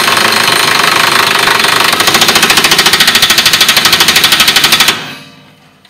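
Air impact wrench with a 21 mm socket driving a shock absorber bolt home. It spins the bolt for about two seconds, then hammers rapidly as the bolt tightens, and stops about a second before the end.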